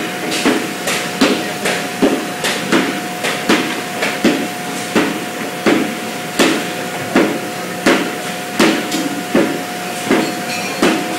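Cooperage shop machinery knocking in a steady rhythm, about one to two sharp strikes a second, some in quick pairs, over a constant hum.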